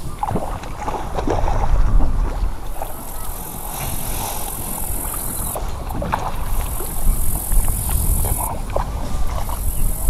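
Wind buffeting the microphone, with rustling and handling noises as the camera moves through tall grass by the water. A high steady hiss starts and stops several times.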